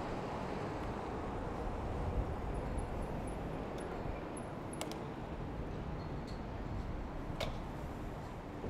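City street ambience heard from a moving bicycle: a steady rumble of traffic and road noise, with a few faint clicks and a brief run of faint high chirps.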